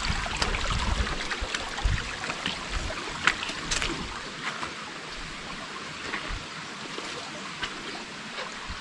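River water running steadily over rocks, with scattered sharp clicks of stone on stone.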